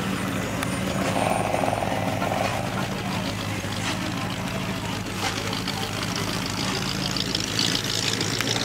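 An Oldsmobile Cutlass engine running steadily at low revs as the car creeps forward and pulls away, a steady low engine drone.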